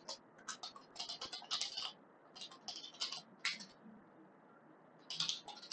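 Typing on a computer keyboard: quick runs of keystrokes, pausing for about a second and a half before a last short run near the end.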